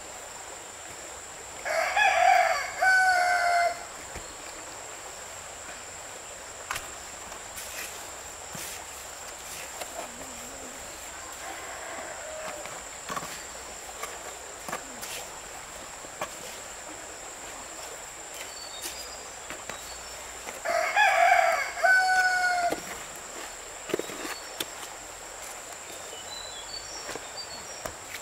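A rooster crowing twice, each crow about two seconds long and the second coming some eighteen seconds after the first, over a steady high-pitched drone.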